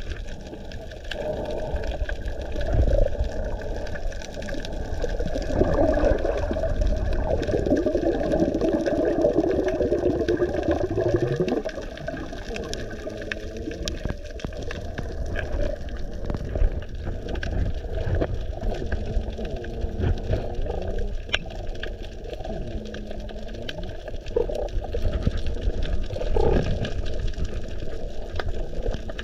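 Water recorded underwater through a camera's waterproof housing: muffled, continuous sloshing and gurgling, with a few faint low wavering tones and small clicks.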